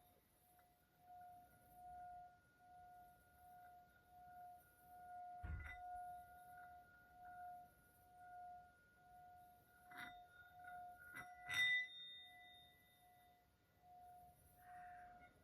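Faint sustained ringing tone that swells and fades about once a second, with three struck metallic rings, the last and loudest near the end ringing on for a couple of seconds.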